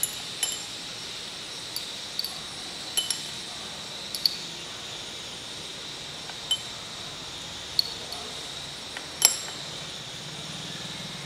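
Small glass clinks and taps as a dropper touches a glass test tube while egg albumin solution is measured into it, about ten scattered light clicks with the sharpest about nine seconds in, over a steady room hiss.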